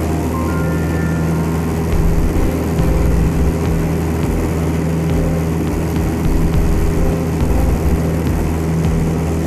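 Piper PA-28 Archer's four-cylinder Lycoming engine and propeller in flight, heard from the cabin: a steady, loud low drone over rushing air.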